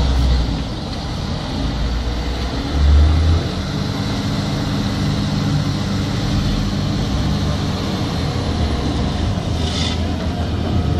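Volvo EC240 excavator's diesel engine running with a steady low rumble, briefly louder about three seconds in. A short hiss comes near the end.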